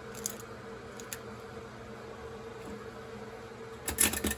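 A few faint clicks from a wind-up tin toy being wound, over a faint steady hum. Near the end the clockwork toy is let go and starts running with a rapid, loud clatter.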